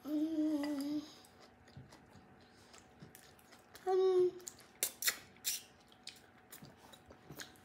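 A child's long thinking hum, "hmmm", followed about four seconds in by a short "mm" and a few light clicks and smacks of eating noodles.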